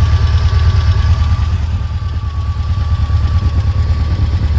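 Air-cooled VW Beetle 1.9-litre naturally aspirated flat-four with twin Weber 48 IDF carburettors idling steadily, heard close at the open engine bay. Under the even low rumble a thin steady whine runs.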